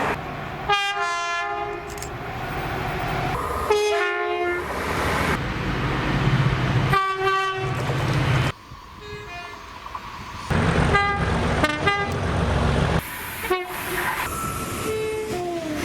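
Locomotive air horns sounding in a run of short cut-together clips: several separate multi-note chord blasts, over the low rumble of moving trains. Near the end one horn falls in pitch as it passes.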